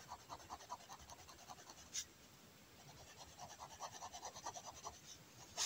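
Fineliner pen tip scratching faintly across kraft paper in quick, short hatching strokes as tone is built up. There are two runs of strokes with a pause between them, and a sharper click about two seconds in and another at the end.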